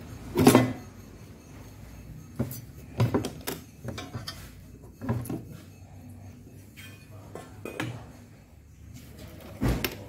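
Metal clunks, knocks and clinks from a motorcycle pannier box's key-operated quick-release lock and mounting bracket as the box is unlocked and worked loose. The loudest clunk comes about half a second in, followed by a scattering of smaller knocks and clinks.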